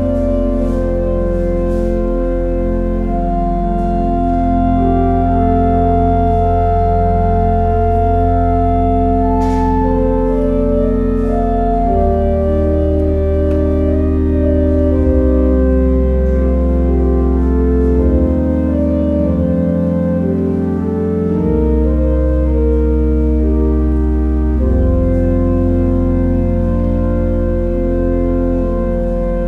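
Church organ playing slow, sustained chords over long-held deep bass notes, the harmony shifting every second or two.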